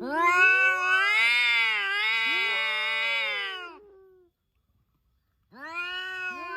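Cat yowling loudly: one long, wavering drawn-out call lasting about four seconds, a brief silence, then a second yowl beginning near the end.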